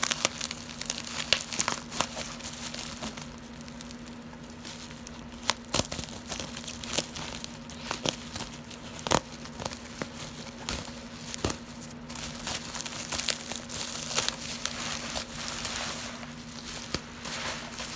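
Packing material being crinkled and torn as a delivered parcel is unwrapped: irregular crackling with sharp snaps, over a steady low hum.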